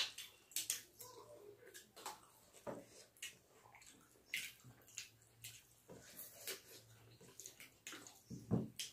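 Close-up eating sounds of rice and chicken curry eaten by hand: wet chewing and mouth smacks mixed with fingers squishing rice on steel plates, an irregular string of short clicks and squelches.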